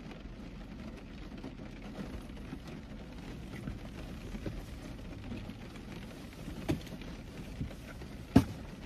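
Steady patter of rain on the roof of a car, heard from inside the cabin, with a few soft clicks and one sharper click near the end.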